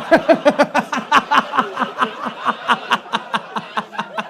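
Comedy-club audience laughing at a joke, led by one person's loud, rhythmic 'ha-ha-ha' laugh of about five bursts a second that slowly tails off.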